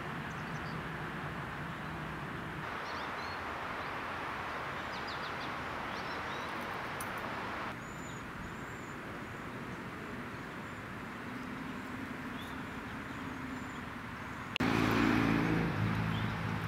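Outdoor ambience with a steady hiss and birds chirping now and then, changing abruptly at a few edits. Near the end it gets louder, with a low steady hum like a distant engine.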